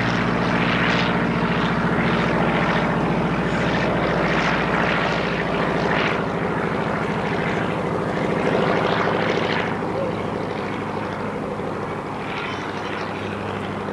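Piston engine of a propeller-driven WWII warbird running with a steady, even engine note; it eases off a little about ten seconds in.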